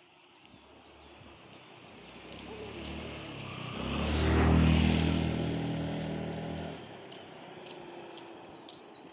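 A motor vehicle drives past on the road: its engine grows louder, is loudest about four and a half seconds in, then fades away. Birds chirp in the background.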